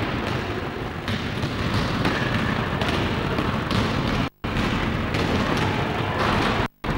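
Echoing gym ambience of a youth basketball game on a camcorder microphone: a thick, noisy din with the thuds of a basketball bouncing. The sound cuts out to silence for a moment about four seconds in and again near the end.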